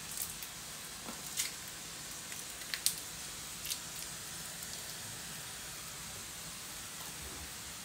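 A few light crinkles and clicks from thin brik pastry sheets being handled and folded around the filling, over a steady background hiss. The clicks are spread over the first four seconds.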